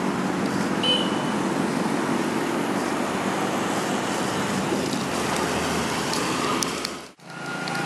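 Road traffic at a street intersection: a steady wash of car and road noise. The sound drops out abruptly for a moment near the end.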